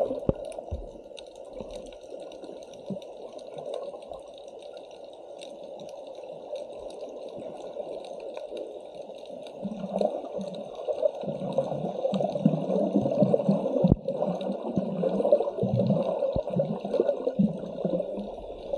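Water rushing and churning as heard by a camera underwater while freediving, growing louder and more turbulent about ten seconds in.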